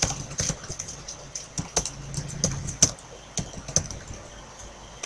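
Typing on a computer keyboard: irregular key clicks, several a second.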